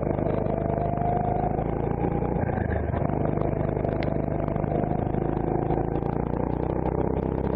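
Onboard sound of a CRG Centurion rental go-kart's engine running at low revs through a slow corner, its revs climbing in the last couple of seconds as the kart accelerates out.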